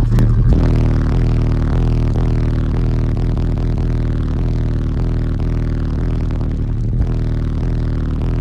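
A wall of nine Fi Team NEO 12-inch subwoofers playing one held, very deep bass note at extreme level inside a truck cab. The note is heavily distorted and buzzing. About half a second in, the busier hip-hop track gives way to this steady note.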